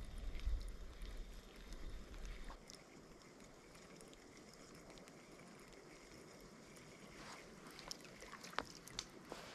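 Flowing water running steadily, with wind rumbling on the microphone for the first two and a half seconds and a few light clicks near the end.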